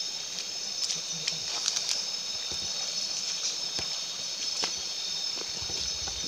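Water of a shallow rocky stream running and splashing, with scattered clicks and knocks of stones being moved and handled as someone wades and searches among them. A steady high-pitched chorus of several tones runs over it throughout.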